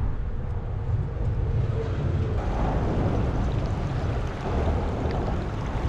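Wind buffeting the microphone over the steady rush of creek water: a continuous noisy rumble, heaviest in the low end.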